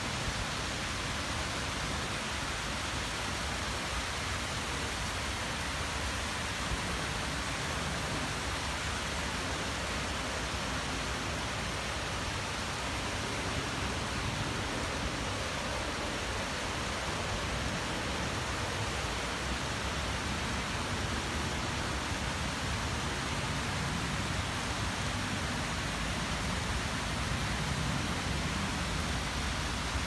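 Waterfall rushing, a steady, unbroken wash of falling water.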